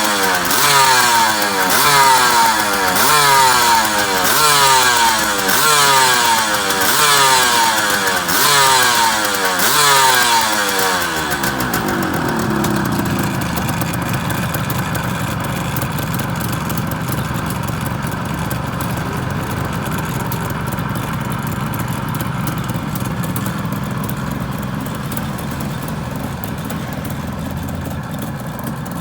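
Suzuki GT380's air-cooled two-stroke triple, freshly overhauled, revved in short throttle blips about once a second. About eleven seconds in it drops back to a steady idle.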